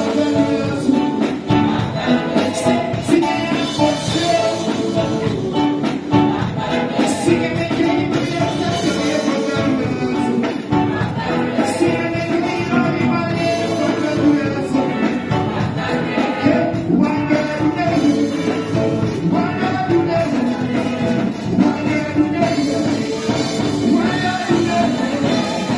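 Live gospel praise band playing: electric guitar, electric bass, keyboard and drum kit, with a lead singer and backing vocalists singing through microphones. The music runs at a steady loudness without a break.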